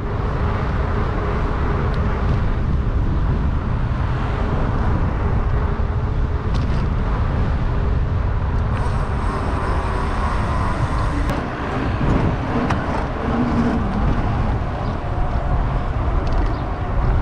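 Steady wind rush on a handlebar-mounted camera's microphone, with the rolling hum of a mountain bike's knobby tyres on asphalt.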